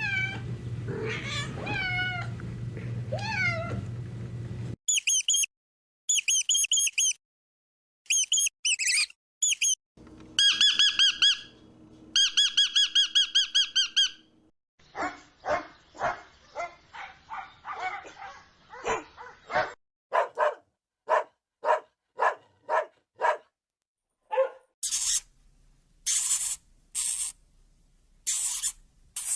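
A run of different animal calls edited one after another: some pitched calls, then groups of very high chirps and squeaks, then rapid pulsed calls, and short high-pitched bursts near the end.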